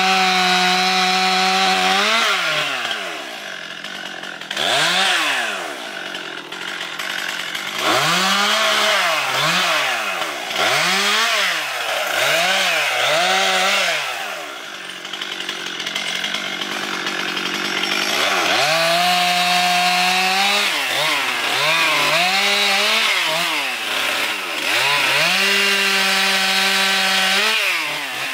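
Chainsaw cutting cedar, revved over and over: held at full throttle for about two seconds near the start, again about two-thirds through and again near the end, with quick short revs and dips toward idle in between.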